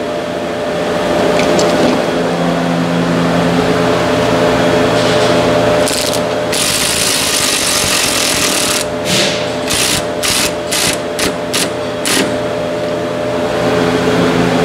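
A handheld power tool running down a 10 mm bolt: one run of about two seconds, then a string of short trigger bursts. A steady mechanical hum sits underneath.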